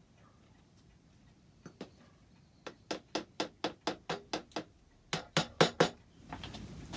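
Hammer tapping glued oak wedges into saw kerfs in a clock door: a quick run of about ten sharp taps, about five a second, then four more after a short pause.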